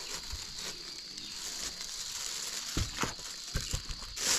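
Plastic bags and snack wrappers crinkling as the offerings in a woven basket are handled, with a few short soft knocks in the second half.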